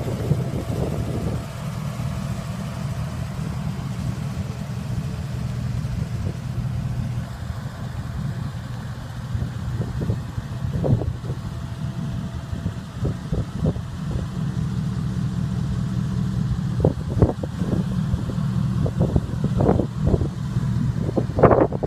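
Straight-piped 2005 Dodge Ram's gasoline V8 idling steadily through its open exhaust. Scattered short knocks and rustles come over the second half.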